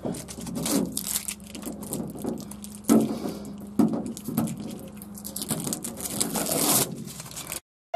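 Irregular rustling, scraping and light knocks from hands working at the van's bare metal roof and its wooden battens, over a faint steady hum; it cuts off suddenly near the end.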